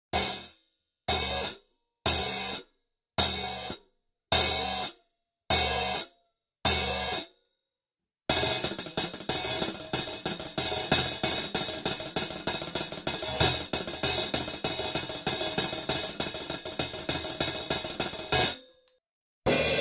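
Hi-hat cymbals struck: seven single hits about a second apart, each ringing briefly, then a fast run of many hits a second for about ten seconds that stops abruptly.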